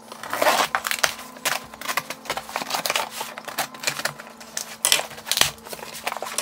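A cardboard shipping box being opened by hand: packing tape torn off and the flaps pulled back, a busy run of crackles, rips and scrapes of tape and cardboard.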